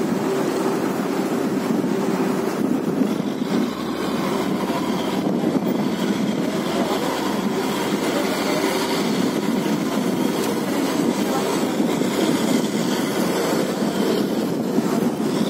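Steady mechanical rumble of a ship under way, engine noise mixed with water rushing along the hull, with no break or change.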